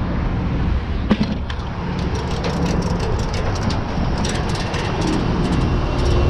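A truck engine idling with a steady low hum, over which comes a run of sharp metallic clinks and clatter from about a second in until near the end, as a shovel and tools are handled against the truck's metal bed.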